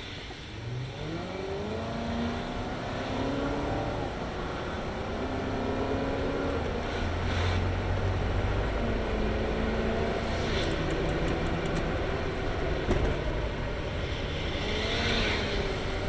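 Car engine accelerating from a stop, heard from inside the cabin, its pitch climbing through the gears and dropping at each upshift. The exhaust has just been repaired, so there is no exhaust leak noise.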